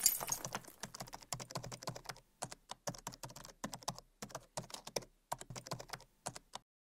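Computer keyboard typing sound effect: quick, uneven key clicks that stop abruptly near the end.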